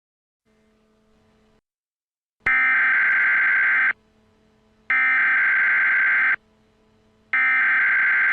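Emergency Alert System SAME header: three loud, identical bursts of screeching digital data tones, each about a second and a half long and a second apart, marking the start of a new alert message.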